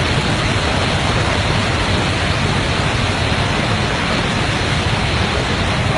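Floodwater from a burst dam rushing past in a steady, loud torrent.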